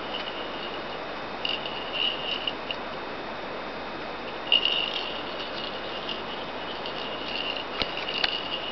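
A jingle bell inside a hollow plastic cat ball jingling in short bursts as a kitten bats and rolls it, with two sharp clicks near the end, over a steady hiss.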